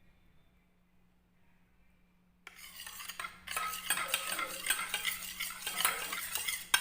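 A spoon stirring honey into freshly pressed herbal juice, starting about two and a half seconds in: quick, continuous scraping and clinking against its container.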